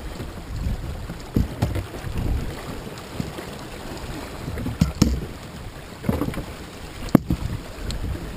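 A canoe being hauled by hand under overhanging tree branches: branches rustle and scrape, with a few sharp knocks and cracks, the loudest near the end, over a low rumble.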